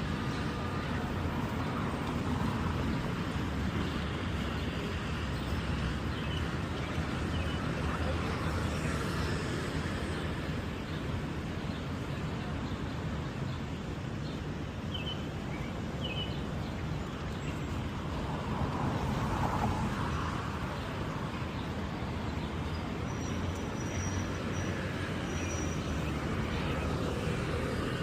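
City street ambience: a steady rumble of traffic, with a few faint brief higher sounds over it.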